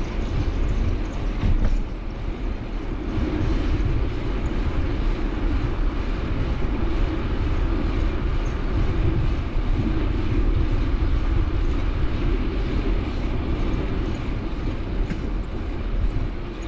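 Steady rumble and road noise of a moving vehicle.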